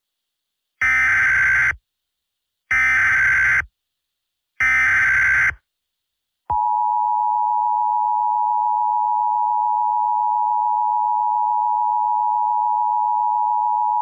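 Emergency Alert System alert opening: three one-second bursts of SAME header data tones about a second apart, then the two-tone EAS attention signal holding steady for about eight seconds. It is the start of a national Presidential alert.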